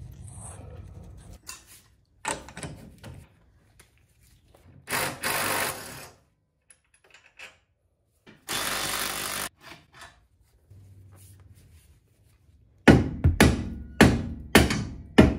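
Hammer blows on a car's rear wheel hub: a run of about six sharp metal strikes near the end, banging at a rear axle shaft stuck in the hub. Earlier, a few short bursts of noisy mechanical sound.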